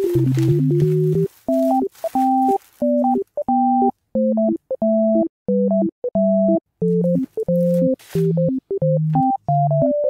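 Background music: a synthesizer tune of short, clipped notes with brief gaps between them.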